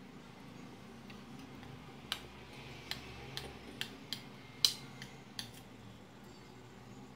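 A metal spoon clinking and scraping against a ceramic dinner plate while scooping biryani rice: a string of about seven or eight sharp clicks starting about two seconds in, the loudest a little past the middle.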